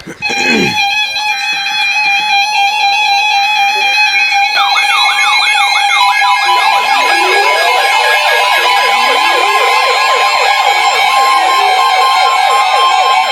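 Several NOAA weather radio receivers alarming for a Severe Thunderstorm Warning. Steady electronic alert tones sound from the start. Warbling siren-style alarms join about four seconds in and overlap, and another steady tone comes in around the middle.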